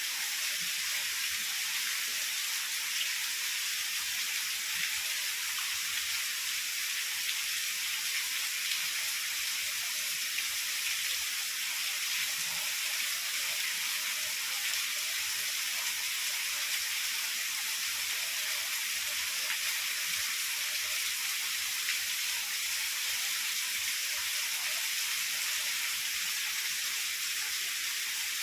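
Heavy rain falling steadily as an even, high hiss, with no thunder or other events.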